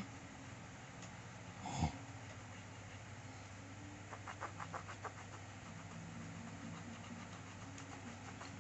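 Pencil scratching on paper as a drawing is shaded, with a quick run of about eight short scribbling strokes around four to five seconds in, over a steady low hum. A brief louder sound, falling in pitch, comes about two seconds in.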